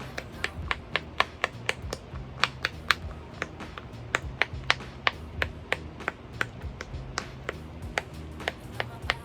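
Silicone pop-it fidget toy bubbles being pressed one after another: a quick, uneven string of sharp little pops, about three or four a second.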